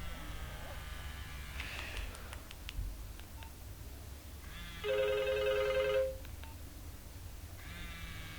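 Nokia 1112 mobile phone sounding through its small speaker: a loud, steady electronic ringtone chord of about a second near the middle, with fainter tones at the start and near the end and a few light clicks between them, over a low hum.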